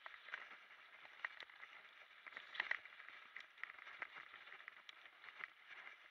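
Mountain bike rolling down a dirt trail: tyres crackling over the ground and the bike rattling and clicking irregularly over bumps, with a louder cluster of rattles about two and a half seconds in.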